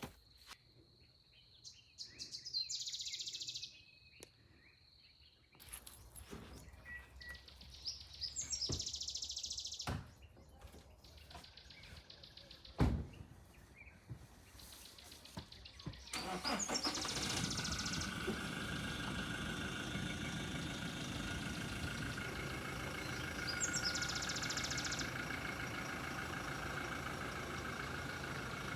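Birds chirping in quiet outdoor ambience, with a single sharp knock partway through; about halfway in, a steady vehicle engine noise starts and keeps running.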